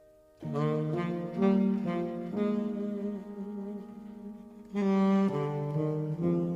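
Background music: a melody of held notes, one after another, starting about half a second in.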